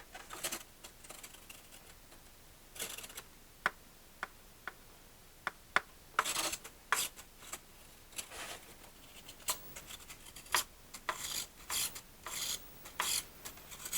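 Micro servos of a small RC foam jet buzzing in short bursts as its control surfaces are moved, mixed with sharp clicks, busier in the second half.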